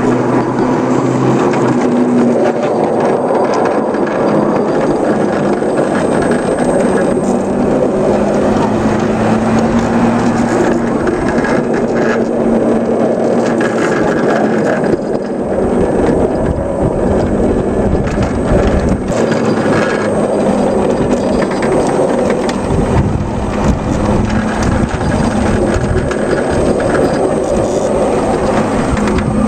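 A 5-inch gauge ride-on Whitcomb locomotive running along its track: a steady mechanical hum with a slightly wavering tone, over a rumble from the drive and the wheels on the rails.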